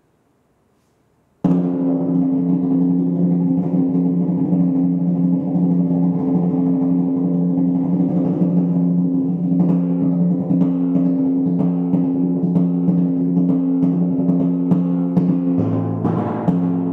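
Pedal timpani: after a moment of near silence, a loud roll starts suddenly about a second and a half in, sustaining two pitches at once with rapid strokes. Near the end a lower-pitched drum joins in.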